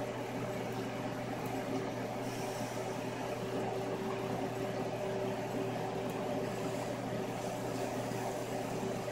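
A steady mechanical hum with an even hiss underneath, unchanging throughout.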